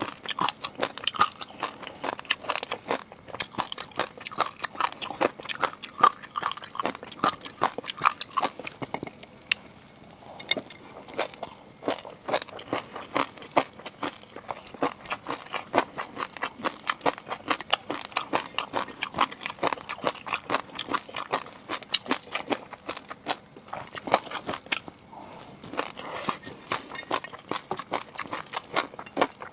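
Close-miked eating: chewing and biting, a dense run of crisp clicks and crunches several times a second, with a short lull about ten seconds in.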